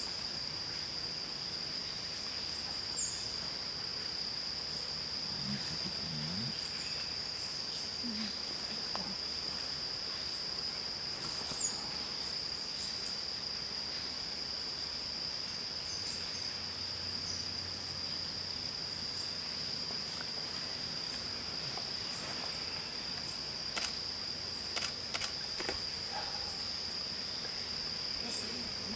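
A steady, high-pitched insect drone holding one unbroken note, with a few faint short chirps and ticks over it.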